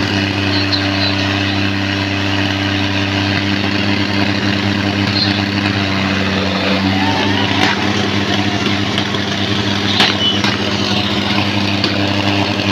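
Diesel engines of two tractors, a John Deere and a Sonalika, running at a steady speed while chained back to back for a tractor tug-of-war, with crowd voices around them. The engine note shifts slightly about six seconds in, and there is a sharp click near ten seconds.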